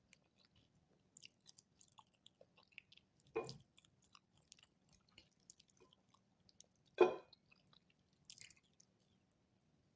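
A person chewing food close to the microphone: small wet mouth clicks and ticks, with two louder sudden sounds about three and a half and seven seconds in.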